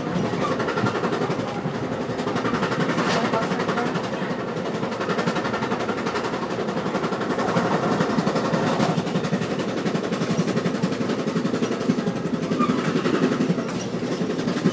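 Steady running noise of a passenger train in motion, heard from inside the car, with a few faint knocks from the car and track.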